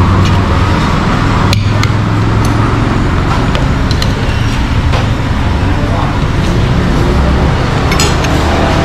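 Spoons and forks clinking against plates and bowls every second or so, over a steady low rumble of background noise.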